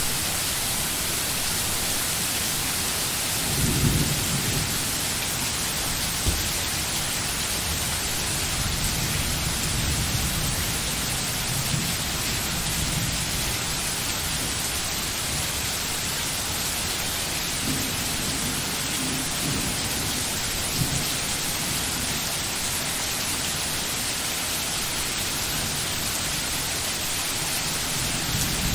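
Steady heavy rain hissing, with low rumbles of thunder rolling underneath; the loudest rumble comes about four seconds in, and others roll through a little later.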